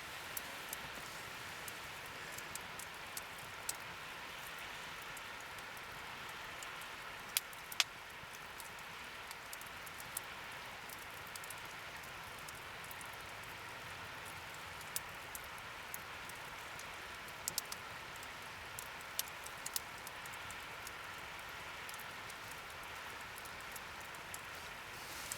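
Wood fire crackling: a steady hiss with irregular sharp pops and snaps, two louder ones about seven seconds in.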